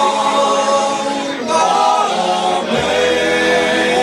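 Several men's voices singing an Irish folk song together in harmony, holding long notes and moving to a new chord about a second and a half in.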